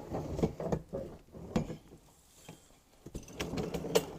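Irregular knocks and clatter of garden cart parts being handled and moved during assembly, with a quieter pause partway through and a sharp click near the end.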